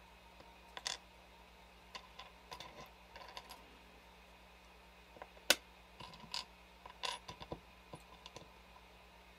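Small metal charms clinking and clicking as they are picked up and set down one by one on a tray, in irregular light taps with one sharp louder click about five and a half seconds in, over a faint steady low hum.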